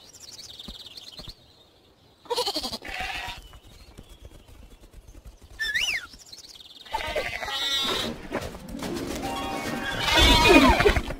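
Cartoon sheep bleating, several voices overlapping and getting louder toward the end, over background music.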